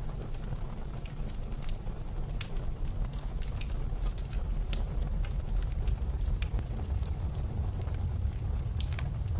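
Wood fire crackling in a fireplace, with scattered sharp pops and snaps, over a low, steady rumble of blizzard wind.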